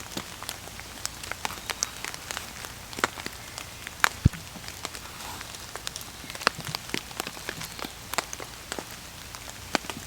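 Heavy rain hitting a tarp shelter overhead: a steady hiss of rain with many irregular sharp drop impacts on the tarp, a few of them loud.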